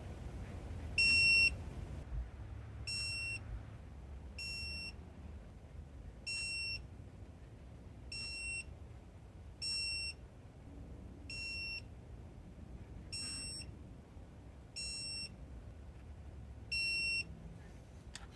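Electronic torque wrench beeping about ten times, one short high beep every one and a half to two seconds, each signalling that the set torque of about 42 lb-ft has been reached on a cylinder-head nut.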